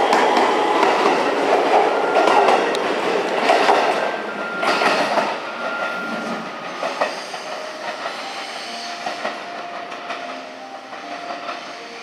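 JR West 223 series electric train pulling out, its wheels clattering over rail joints as the cars pass close by, with the inverter's whine rising in pitch at the start. The sound fades steadily over the following seconds as the train draws away.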